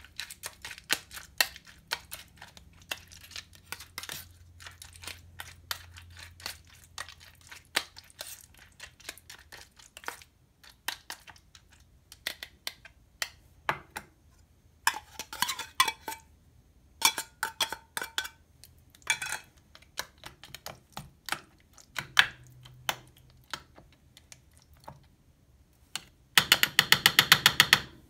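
A metal spoon clinking and scraping against stainless steel cat bowls and an open food can as wet cat food is scooped out and pushed into the bowls. Near the end comes a fast run of clinks, louder than the rest, as the food is stirred in a bowl.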